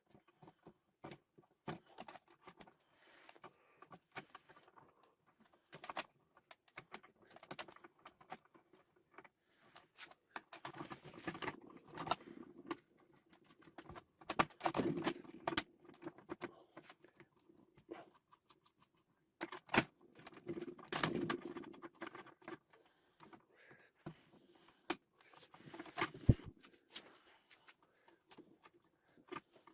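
Metal parts and hand tools being handled on a workbench: scattered clicks, clinks and short rattles, with a few louder knocks around 20 and 26 seconds in.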